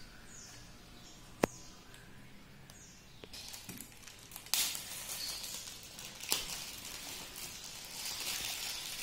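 Plastic wrap and packing tape being picked at and peeled off a parcel: irregular crinkling and rustling, with a sharp click about a second and a half in and louder crackles about four and a half and six seconds in.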